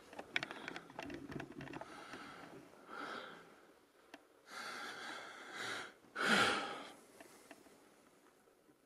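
Light clicks and rustles of a hand-held camera being moved, then three breaths close to the microphone, the last and loudest a heavy exhale.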